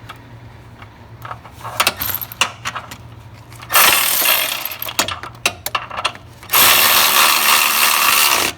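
A power tool runs a steering rack mounting bolt into the subframe: two steady runs, the first about a second long and the second nearly two, each cutting off suddenly. Light metallic clicks of the socket and bolt come before them.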